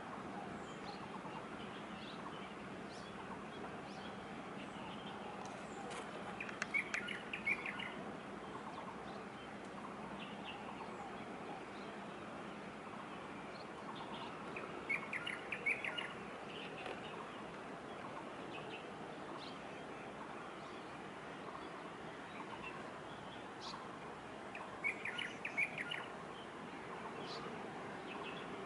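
A small bird singing three short bursts of rapid high chirps, each about a second long and roughly eight to ten seconds apart. Under it runs a steady low background hum.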